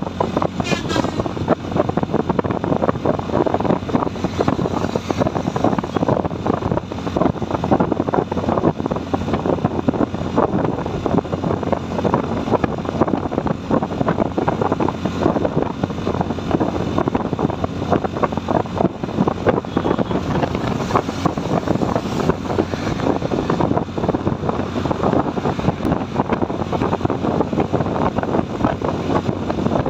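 Wind buffeting the microphone and the road rush of a motorcycle ride at highway speed, a steady dense fluttering noise with no letup.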